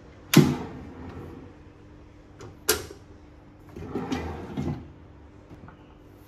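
Two sharp knocks about two seconds apart, the first the loudest, then about a second of softer bumping and rustling, like things being handled and set down in a small room.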